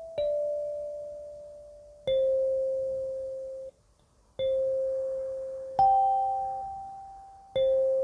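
17-key clear acrylic kalimba with steel tines, plucked slowly: about five single notes, one every one and a half to two seconds, each striking sharply and ringing as it fades. The sound drops out briefly a little before halfway.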